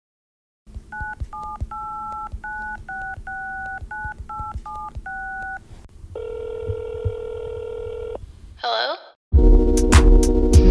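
A phone number keyed in as a run of about eleven touch-tone beeps, followed by one ring of the ringback tone lasting about two seconds. A brief sweeping electronic sound follows, and loud music with a drum beat starts about nine seconds in.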